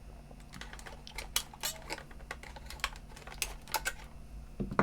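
Small plastic clicks and clatter of batteries being taken out of the battery compartment of a Sanyo CDP-190 portable CD player. A dozen or so irregular clicks, the loudest near the end.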